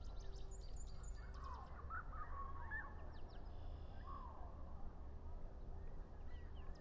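Wild birds calling: a run of quick high chirps in the first second and a half, then a few lower calls that rise and fall in pitch around the middle, over a steady low rumble.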